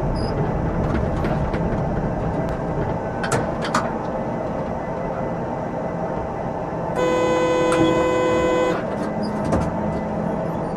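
Tram running along its rails, heard from inside the driver's cab: a steady rumble with a couple of sharp clicks a little over three seconds in. About seven seconds in, a steady horn-like tone sounds for a bit under two seconds.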